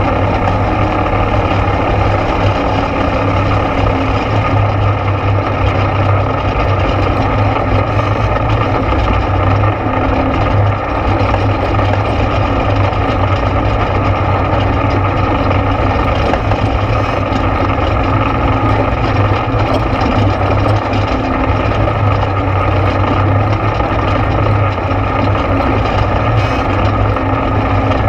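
ATV engine running steadily while riding on a trail, a constant low drone with no change in speed.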